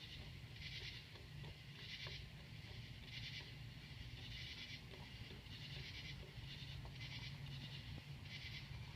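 Turbocharger on a 2001 Cummins diesel with 211,000 miles, making short, repeated chirping squeals about once a second over the engine's low, steady rumble. The owner suspects the turbo is going bad.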